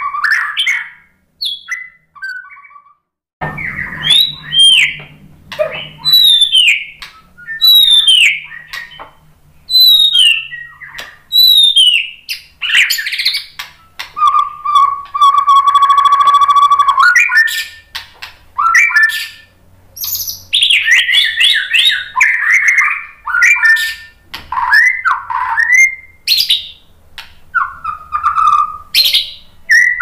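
White-rumped shama singing in full, varied song. After a brief pause it gives a series of repeated falling whistles, then a long held note with a rattling trill over it about halfway, then quick mixed phrases.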